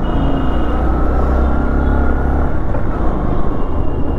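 Motorcycle engine running as the bike rides along a street, heard from the rider's position, with a steady low rumble of wind on the microphone.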